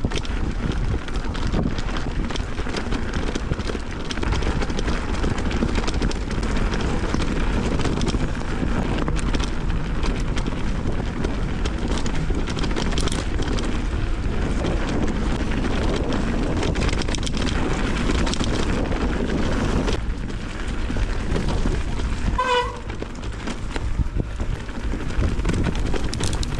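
Wind buffeting the microphone of a camera riding along on a bicycle, with steady road and tyre noise and many small knocks. A brief pitched beep about 22 seconds in.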